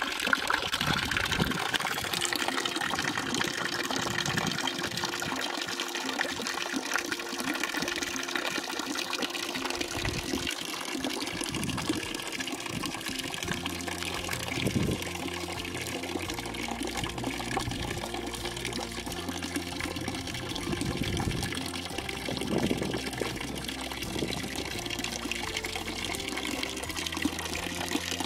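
Water running steadily from a spring-fed village fountain (çeşme).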